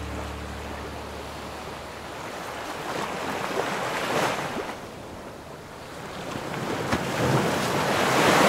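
Sea surf breaking on a sandy beach: a rushing wash that swells twice, peaking about four seconds in and again, louder, near the end, with some wind.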